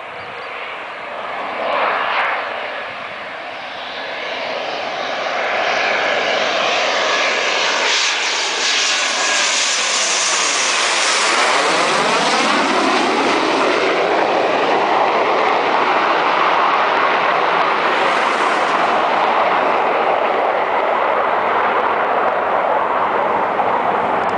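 Panavia Tornado's twin RB199 turbofan jet engines growing louder as the jet approaches. It passes low overhead with its landing gear down about halfway through, with a sweeping, phasing sound, then the loud steady jet noise carries on as it moves away.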